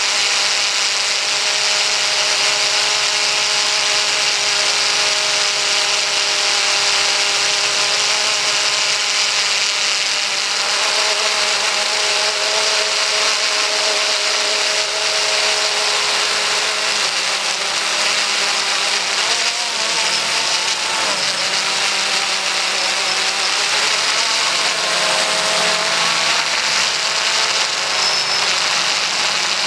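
Steady whine of an XK X380 quadcopter's brushless motors and propellers, heard from its onboard camera over a hiss. Its several pitches hold steady at first, then waver and shift as the motor speeds change, about two-thirds of the way in and again near the end.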